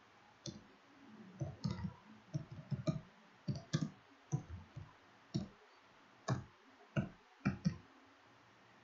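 Computer keyboard keys tapped one at a time: an unhurried, uneven string of separate clicks as a word is typed out letter by letter.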